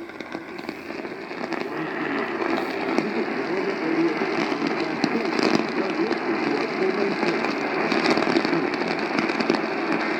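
AM radio static: a rough hiss full of crackles, growing louder over the first few seconds and then holding steady.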